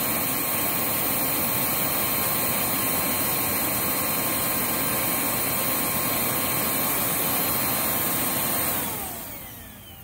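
Riccar R25P upright vacuum's suction motor running steadily at full speed with a high whine and a rush of air. Near the end it shuts off and winds down, its pitch falling.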